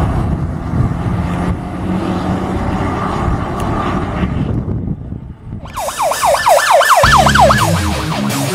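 Fire engine running as it pulls away down the road. About six seconds in, an electronic siren yelps rapidly, and music starts under it about a second later.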